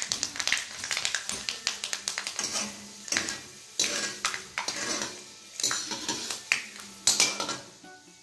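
A steel slotted skimmer stirs and scrapes in a metal kadhai, clinking against the pan again and again, while fenugreek seeds sizzle in the hot oil. The seeds are being fried until they brown, as a tempering.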